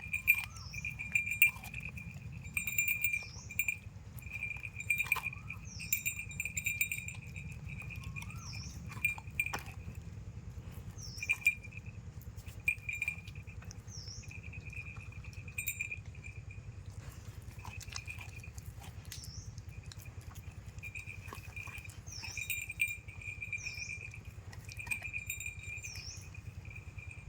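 A dog gnawing and crunching on a coconut: irregular clicks and cracks of teeth on husk and shell, with a few louder snaps.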